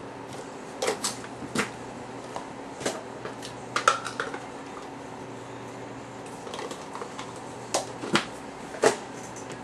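Thick trading cards being handled, shuffled and set down: irregular sharp clicks and taps, a few at a time, bunched around one, four and eight seconds in.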